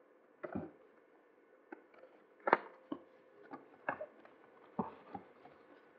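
Hands handling a cardboard smartphone box and the accessories packed inside it: a string of irregular taps and knocks, the loudest about two and a half seconds in.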